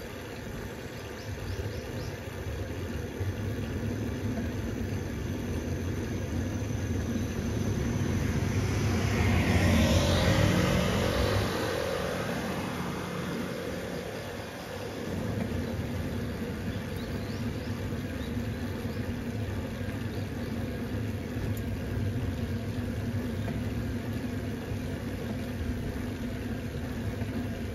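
A car driving along a road, with steady low engine and road noise; about ten seconds in the noise swells louder and then fades.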